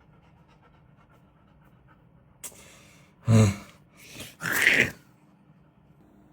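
A short low grunt about three seconds in, followed by two sharp breathy huffs.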